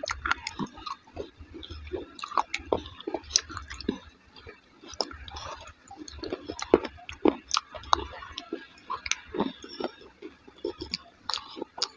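Close-miked chewing of dahi vada, soft lentil fritters soaked in curd: irregular wet, sticky mouth clicks and smacks.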